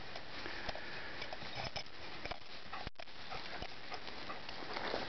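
A dog running through freshly cut, drying hay, its paws rustling and crackling the hay in short irregular bursts over a steady outdoor hiss. The sound drops out for an instant about three seconds in.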